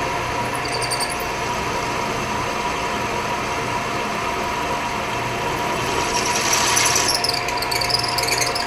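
Milling machine running steadily while drilling a hole in a cast-iron block, with a steady hum. About six seconds in, a higher-pitched squeal of the bit cutting comes in for a couple of seconds.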